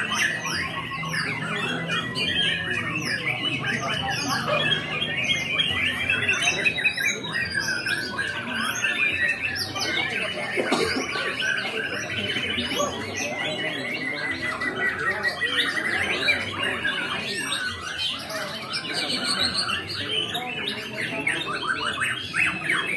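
White-rumped shama (murai batu) singing without pause: a fast, varied run of whistles, trills and chattering notes, with quick rising and falling sweeps.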